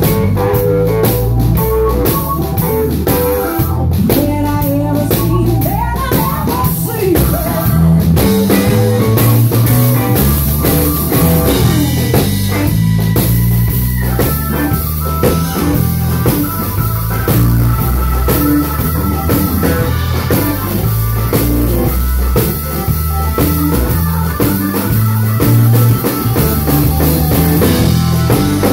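Live blues band playing, with electric bass, drum kit and a Roland RD-700NX stage piano.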